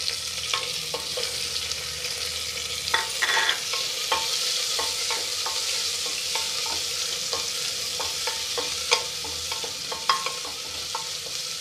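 Sliced onions sizzling in hot oil and ghee in an aluminium pressure cooker, stirred with a wooden spatula that knocks and scrapes against the side of the pot many times.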